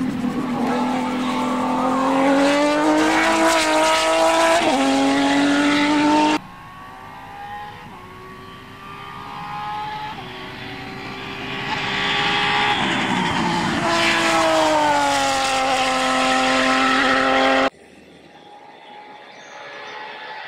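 Reynard 92D Formula Holden single-seater's Holden V6 racing engine at high revs, its pitch climbing as the car accelerates past. After a sudden cut the engine is heard again from further off, growing louder as the car approaches, then passing loud with its pitch dropping, before another sudden cut to a much quieter stretch near the end.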